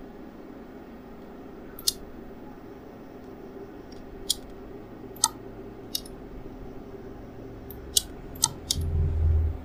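About six sharp, separate computer mouse clicks spread through the stretch, over a steady low electrical hum. Near the end comes a low rumble lasting about a second.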